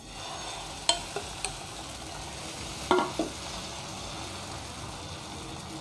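Egg and drumstick-leaf omelette batter sizzling in hot oil in a black pan as it is poured from a ladle and spread out with it. The ladle clinks against the pan a few times, loudest twice about three seconds in.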